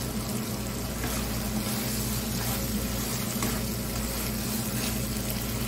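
Okra cooking in a thick yogurt masala gravy in a nonstick pan, sizzling steadily on a low flame while a spatula stirs and scrapes through it several times.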